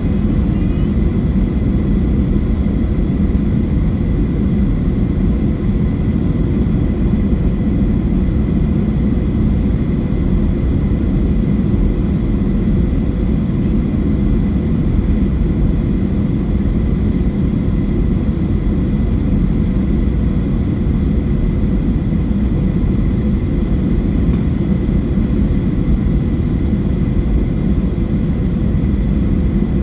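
Steady cabin noise inside a Boeing 737-800: a constant low roar of its CFM56 engines and airflow, with a thin steady whine on top.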